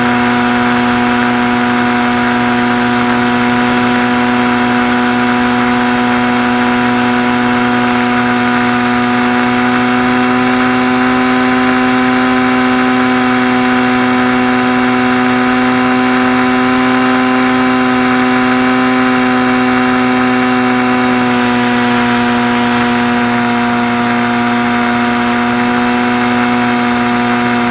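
Electric motor and propeller of a Skywalker RC plane droning steadily. The pitch lifts slightly midway, then drops a little about three-quarters of the way through as the throttle changes.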